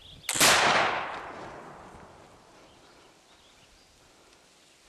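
Flintlock muzzleloading rifle firing one shot: a short crack, then the main blast a split second later, fading away over about two seconds.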